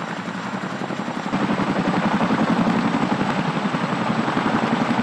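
Boeing CH-47 Chinook tandem-rotor helicopter hovering: the rapid, rhythmic beat of its two rotors, growing louder about a second and a half in.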